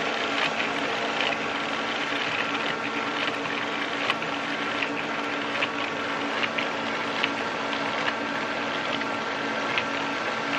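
HHO electrolysis generator running at full hydrogen production: its electrolyte pumps and radiator fan give a steady hum with several fixed tones, with irregular clicks scattered through.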